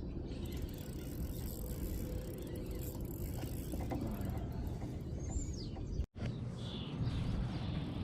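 Fishing reel being cranked as a heavy shad is reeled in, a steady mechanical whirring over wind and water noise. The sound cuts out for a moment about six seconds in.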